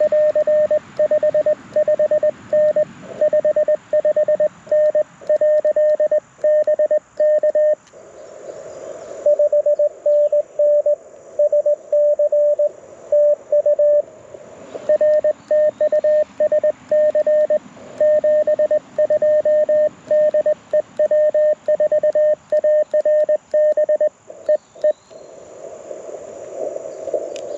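Morse code (CW) from a Mountain Topper MTR4B transceiver played through a small JBL Go 2 speaker: a tone near 600 Hz keyed in fast dits and dahs. The code breaks briefly twice, leaving band hiss, and the keying stops a few seconds before the end, leaving only receiver hiss.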